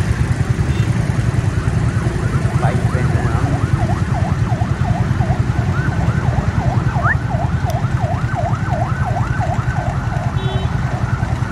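Motorcycle engine running with a steady low sound. Over it an electronic siren yelps rapidly at about three sweeps a second, from about two seconds in until near the end.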